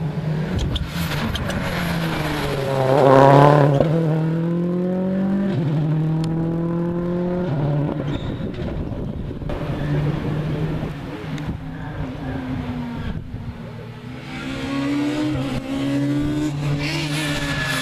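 Rally car at full throttle accelerating past, loudest about three seconds in, its engine pitch climbing and then dropping at each upshift as it pulls away. Near the end a second rally car approaches, its revs rising through the gears.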